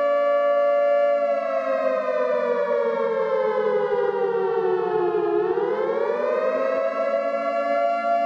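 Civil defense siren sounding a chord of several tones at once. It holds steady, slides down in pitch over about four seconds, then rises back up and holds again: a slow wail.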